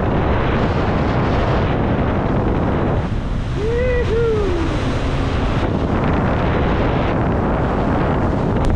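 Wind buffeting the microphone and water rushing past the hull of a motorboat running at speed, as a loud, steady rush. About four seconds in comes a brief two-note tone that rises and falls.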